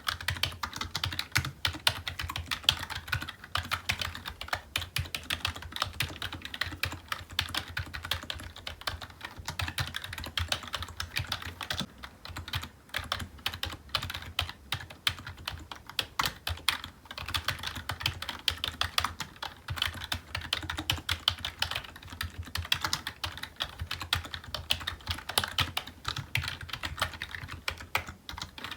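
Computer keyboard being typed on continuously: a dense, unbroken stream of key clicks and taps.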